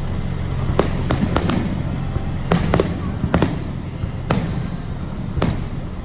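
Scattered sharp taps of raindrops striking the car at irregular intervals, a few a second at most, over a steady low rumble.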